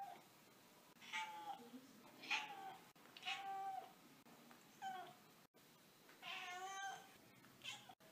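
Domestic cat meowing repeatedly: about seven short meows roughly a second apart, with one longer meow near the end.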